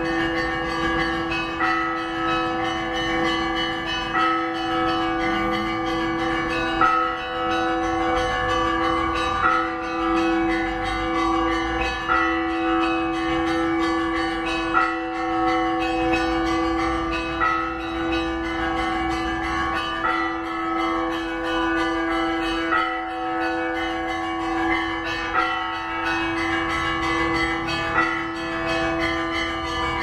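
Russian Orthodox church bells ringing a peal from the bell tower. Under it is a continuous ringing hum, with a repeating pattern of strikes coming back a little under every second and a half.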